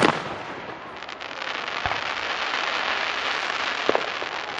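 Aerial firework shells bursting outdoors: a sharp bang at the start, then a few seconds of dense hiss scattered with small pops, and a second bang at the very end.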